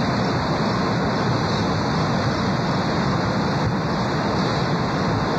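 Steady rushing road and wind noise of a car driving, picked up on a camcorder microphone, with no distinct engine note.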